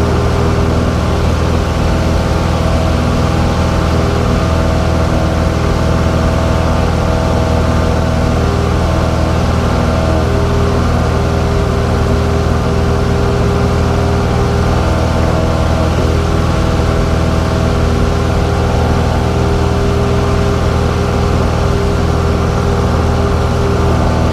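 Light single-engine airplane's piston engine and propeller running steadily in flight, heard from inside the cockpit as a constant, unchanging drone.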